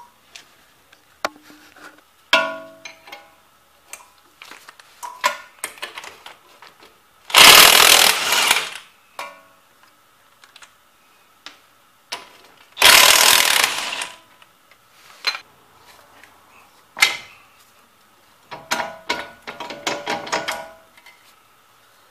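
DeWalt 20V cordless impact wrench hammering in two bursts of about a second and a half each, loosening the 22 mm strut bolts. Scattered metallic clinks and clanks of tools and parts come between the bursts.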